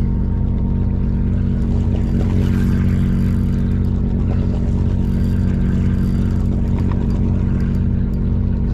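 Fishing boat's engine running steadily: a constant low drone with several steady tones and no change in pitch.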